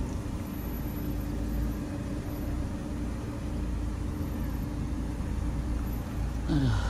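Peugeot 308 car on the move: steady low road and engine rumble with a steady hum over it. Near the end the hum slides down in pitch.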